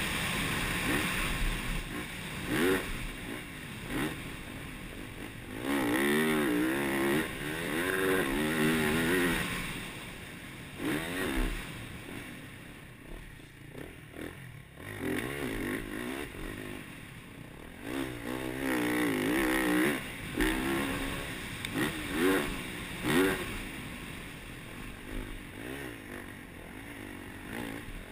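Yamaha YZ450F single-cylinder four-stroke motocross engine heard from on the bike, revving up and backing off again and again as the rider accelerates and shuts the throttle. It goes quieter for a few seconds around the middle, through a corner, then revs hard again.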